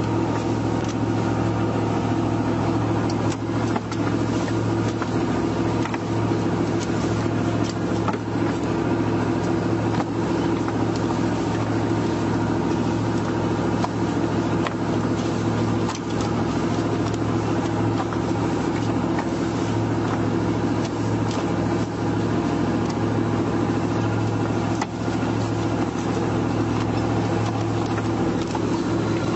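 Crab boat's engine running steadily, a low even drone, with occasional light knocks over it.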